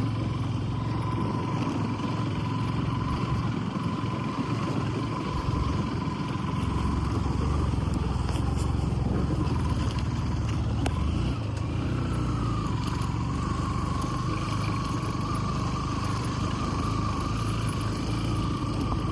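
Vehicle engine and road noise during a drive: a steady low rumble with a thin whine that steps slightly higher in pitch about two-thirds of the way through.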